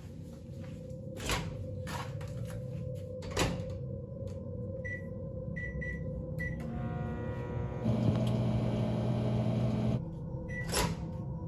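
Microwave oven keypad beeping four times as buttons are pressed, then the oven running with a steady hum for about three seconds. It stops with another beep and a click, and a couple of sharp knocks come earlier on.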